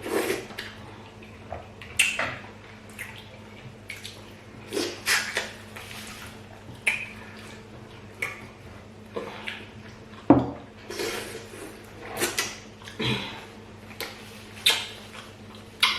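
Eating sounds from fufu and light soup: irregular clinks of bowls and wet, splashy sounds of soup being scooped and eaten, a dozen or so short sounds with pauses between.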